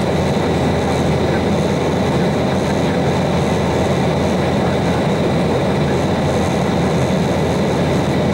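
Steady cabin noise of an Embraer 190 airliner in cruise: airflow and its two GE CF34-10E turbofans making a constant rumble, with a faint steady high whine over it.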